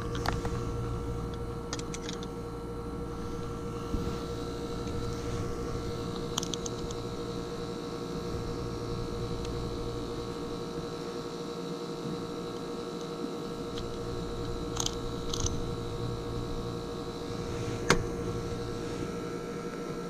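ClimateMaster geothermal heat pump running with a steady hum and a constant tone, while a few light clicks and rattles come from the test meter and probe being handled.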